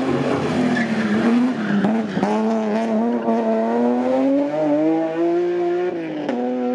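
BMW M3 hillclimb race car accelerating hard out of a hairpin, tyres squealing as it slides through the bend at the start. The engine note climbs steadily through the gears, dropping sharply at an upshift about two seconds in and again near the end.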